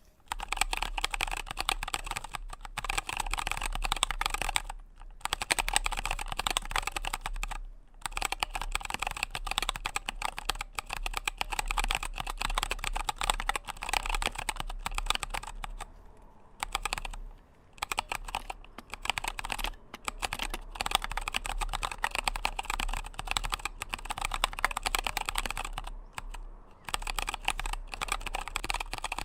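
Typing on a small 27-key mechanical keyboard with Kailh Box Royal switches in a wooden case: a steady run of quick key clacks, broken by a few short pauses.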